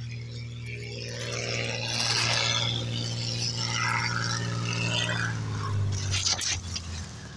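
Crop-spraying plane's propeller engine droning as it flies in low to land and passes close by, its pitch dropping a little as it goes past, then fading.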